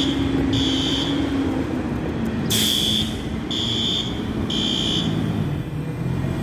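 Fire alarm sounding in the temporal-three evacuation pattern: three half-second high beeps, a pause, then three more, set off by a malfunction. A steady low hum runs underneath, and a short hiss comes about two and a half seconds in.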